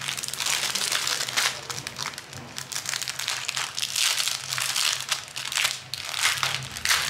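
Clear plastic packaging crinkling and rustling irregularly as a sleeve full of small bags of diamond painting drills is handled and opened.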